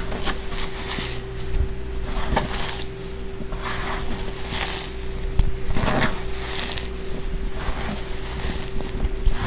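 Nitrile-gloved hands squeezing and crumbling damp baking soda: a run of soft, gritty crunches and squishes that come and go with each press, over a steady low hum.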